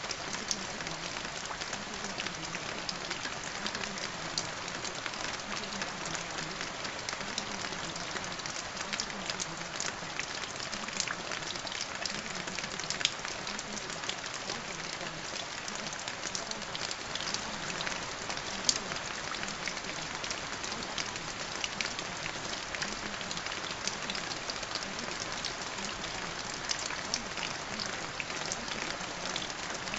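Steady rain falling, with many small drop ticks and a couple of louder drop hits in the middle.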